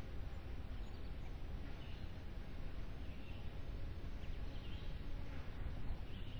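Wood duck ducklings peeping faintly, short high calls about once every second or so, over a steady low rumble.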